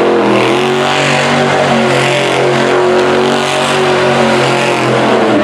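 Monster truck engine running hard at high revs, loud and steady, its pitch rising and dipping slightly.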